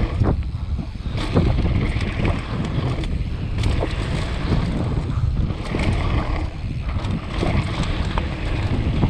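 Downhill mountain bike rolling fast down a loose gravel trail: heavy wind rumble on the microphone, tyres crunching over stones and frequent sharp rattles and knocks from the bike.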